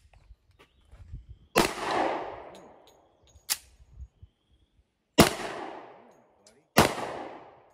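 Kimber Rapide Black Ice 10mm pistol firing three shots: one about a second and a half in, then two about a second and a half apart near the end. Each shot rings out and echoes for about a second. A shorter, sharper crack with no echo comes between the first and second shots.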